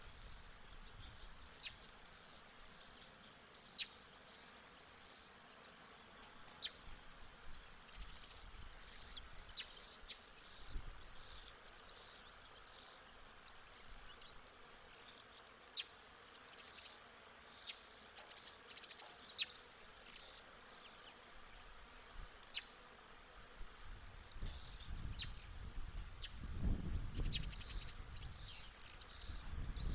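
Outdoor wildlife-camera ambience: a steady, faint high insect hum with scattered short, high chirps every second or two. Low rumbling comes in during the last few seconds.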